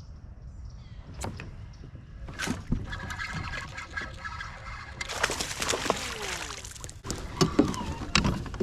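Water splashing and sloshing as a hooked bass is brought to the kayak. There are scattered clicks and knocks, a hissing rush of splashing about five seconds in, and heavier knocks near the end.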